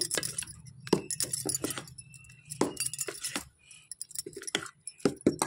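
Steel spoon stirring thick moong dal batter in a stainless steel bowl, clinking and scraping against the bowl in quick, irregular knocks.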